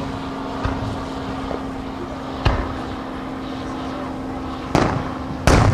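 Aerial fireworks shells bursting in sharp bangs: a couple of lighter ones, then two loud ones close together near the end, the last the loudest, over a steady low hum.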